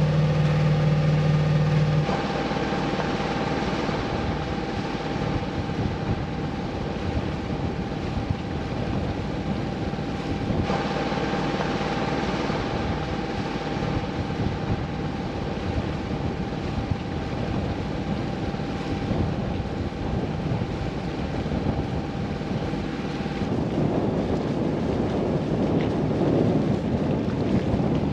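Wind on the microphone and water rushing along the hull of a sailboat under way, over a steady low hum. The wind noise grows rougher and louder near the end.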